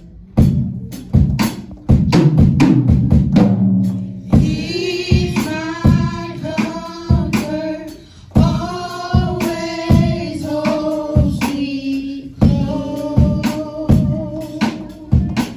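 Church worship song: a woman sings the lead into a microphone over a steady drum beat, with the singing coming in about four seconds in and held notes after that.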